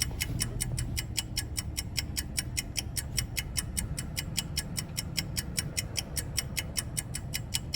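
A car's turn signal ticking fast and evenly, about five or six clicks a second, over the low rumble of the idling car.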